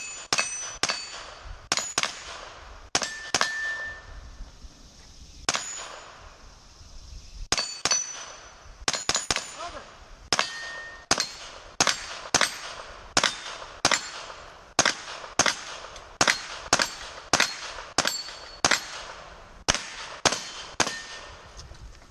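A long string of gunfire at a 3-gun match, with steel targets ringing as they are hit. A few quick shots are followed by a pause of several seconds. The shooting then resumes at a steady pace of about two shots a second.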